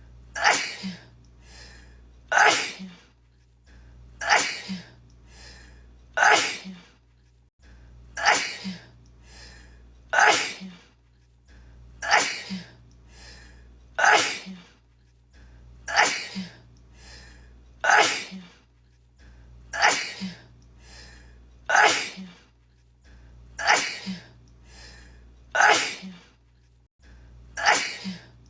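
A woman sneezing, the same sneeze looped over and over at an even pace, about one every two seconds, some fifteen times.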